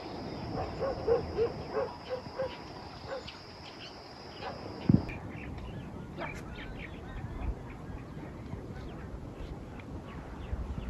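A dog barking in a quick series, about three barks a second, for the first three seconds, over a steady high-pitched whine. The whine cuts off suddenly about five seconds in, just after a single thump; after that only faint scattered ticks remain.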